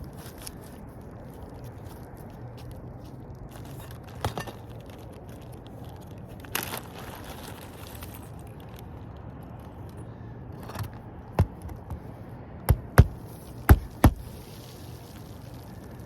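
Crinkling and scraping handling noise on a shingle roof, then about five sharp, loud knocks in quick succession a little past the middle.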